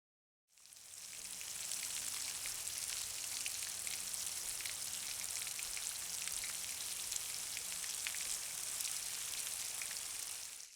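Foley rain sound effect: a dense, even patter of many small drops, made to imitate falling rain. It fades in over about a second and cuts off near the end.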